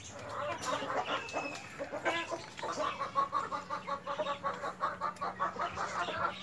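Desi chickens clucking. A little under three seconds in, one bird breaks into a fast, even run of clucks, about six a second, over a faint steady low hum.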